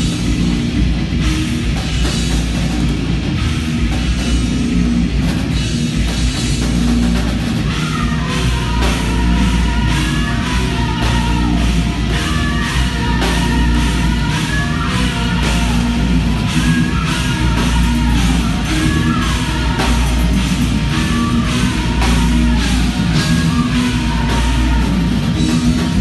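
Heavy metal band playing live: distorted electric guitars, bass guitar and drum kit at full volume. From about eight seconds in a melodic guitar line steps up and down over fast, even drumming.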